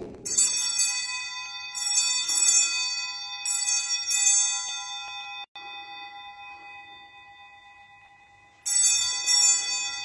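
Altar bells, a cluster of small hand bells, shaken in short rings: three rings close together in the first few seconds, their several high tones ringing on and fading, then another ring near the end. These are the elevation bells rung at the consecration of the Mass.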